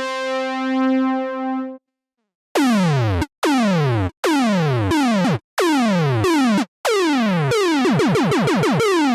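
Nerd Synth software synthesizer playing presets: a held brass-like note that stops about two seconds in, then, after a short gap, six or so separate notes, each a steep downward pitch sweep, the last ones wobbling rapidly. The sweeps come from a preset called "Pac-Man goes dubstep".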